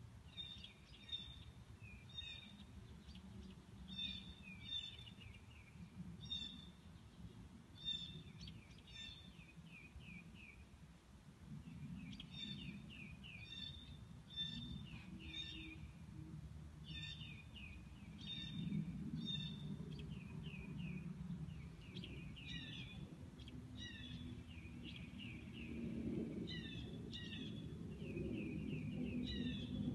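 Songbirds chirping and singing, with repeated short chirps and quick falling trills in clusters every second or two. A low rumble under the birdsong grows louder in the second half.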